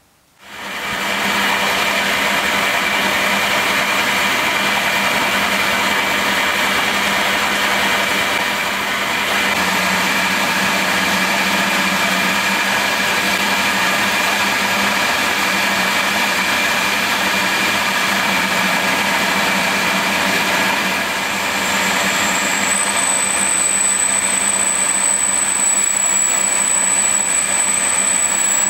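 Milling machine starting up and running steadily while a drill cuts into a brass casting, a constant motor and spindle hum with a few steady tones. A thin, high whine joins in about three-quarters of the way through.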